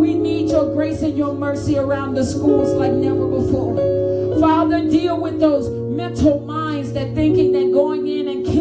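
A woman singing a slow worship song into a microphone, her voice gliding and bending between notes over sustained accompaniment chords that change every second or two.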